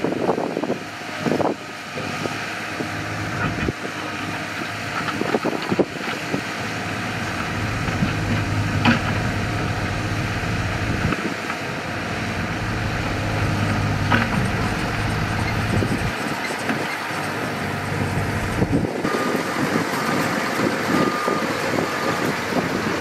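Diesel engines of heavy construction machinery running steadily, with a few sharp knocks now and then.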